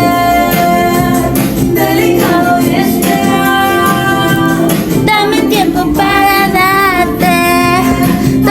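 Pop song with a female singer's voice over instrumental backing, the vocal line wavering and gliding in the second half.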